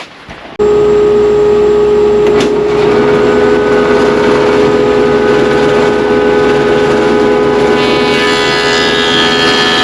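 Woodworking jointer running with a loud, steady motor hum and whine that starts abruptly about half a second in. A rougher, higher sound joins near the end.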